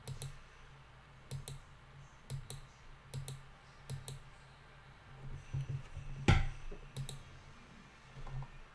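Computer mouse clicking, about a dozen sharp clicks spaced irregularly, the loudest a little past six seconds in, over a faint steady low hum.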